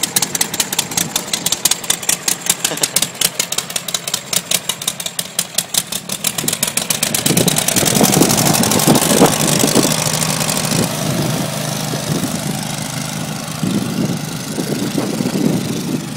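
Westwood T1400 ride-on mower engine running on full choke, firing in fast, even pops for about the first seven seconds. It then revs up with sharp popping and backfiring from the exhaust and settles into a steadier run. The flames from the exhaust and the running only on choke are signs of a rich mixture.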